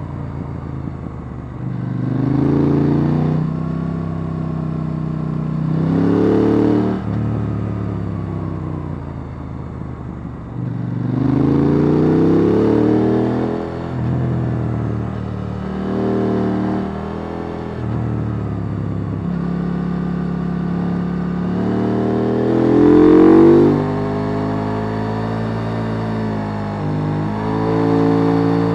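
KTM 890 Duke R's parallel-twin engine on its stock exhaust, heard on board while riding. It pulls hard several times, revving up through the gears, and the revs fall away between pulls. The strongest pull comes a little past two-thirds of the way in.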